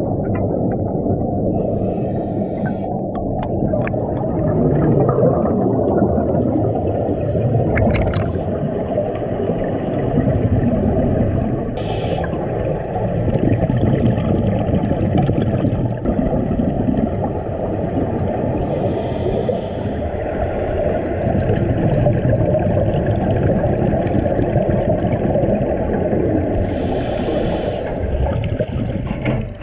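Muffled underwater gurgling and rumble recorded through a camera's waterproof housing on a scuba dive, with a few brief hissing bursts of exhaled bubbles from a diver's regulator.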